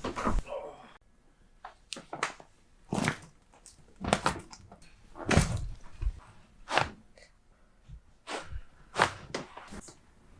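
Chiropractic adjustments: about ten short, sharp pops and thuds at uneven intervals, joints cracking as the back is manipulated.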